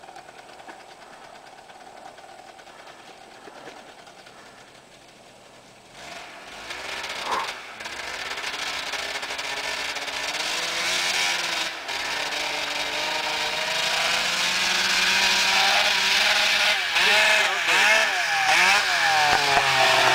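Snowmobile engine running faintly at first, then revving up about six seconds in and growing steadily louder as the sled drives toward the listener, passing close by near the end with its pitch falling and wavering.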